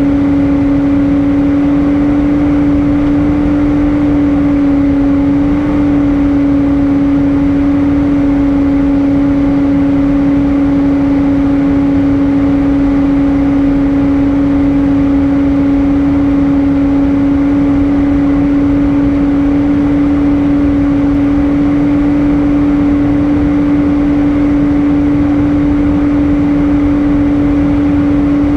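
Airbus A320 cabin noise in flight: a steady engine and airflow drone with a constant low hum running through it.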